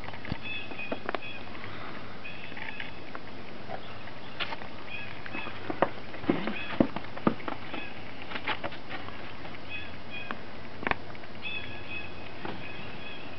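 Boots and a small dog's paws crunching and patting in snow. There are scattered sharp crunches, the loudest clustered around the middle, and short faint high squeaks now and then.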